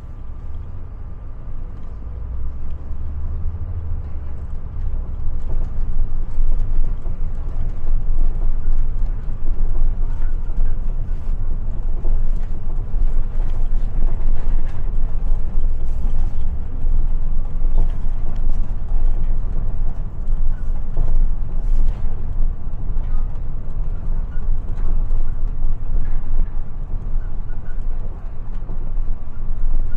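City bus heard from inside while driving: a low rumble of the drivetrain and tyres, with small rattles and clicks from the fittings. It grows louder over the first few seconds as the bus pulls away, then holds steady.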